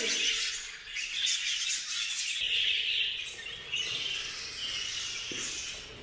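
A large flock of budgerigars chattering, many birds chirping at once in a dense, continuous twitter.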